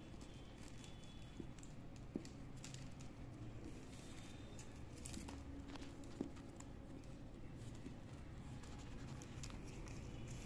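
Plastic craft wires rubbing and clicking against each other as fingers tie a knot at a crossing in the woven plastic-wire work: faint, scattered ticks and light rustling.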